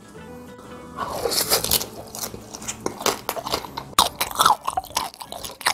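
Close-up biting and chewing of crispy roast pork knuckle skin (Schweinshaxe) dipped in barbecue sauce: a run of irregular, crisp crunches starting about a second in, the loudest around four seconds in.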